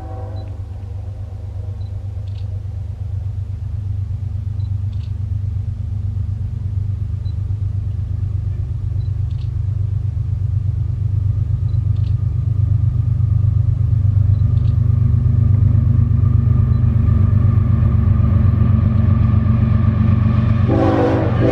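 Approaching Norfolk Southern freight train: the diesel locomotive's steady low engine rumble grows gradually louder, and the horn starts to sound again near the end.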